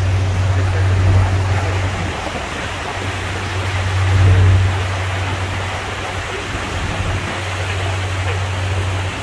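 Rushing water of a tour boat's wake churning behind the stern, with wind on the microphone and the boat's engine droning low underneath.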